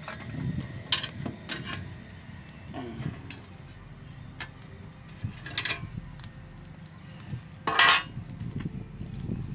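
Metal hand tools clinking and scraping on motorcycle parts: a series of short, separate clinks and rasps, the loudest near the end.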